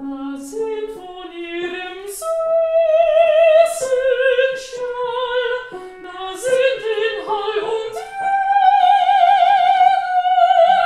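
A woman's trained classical voice singing a phrase of a song with words, in operatic style with vibrato, climbing through several notes and ending on a long high held note.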